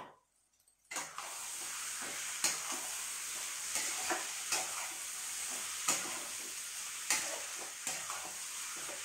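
Chicken and masala sizzling in a steel pan, starting abruptly about a second in, while a spatula stirs and scrapes through it with taps against the pan at irregular intervals. A single click comes just before the sizzle.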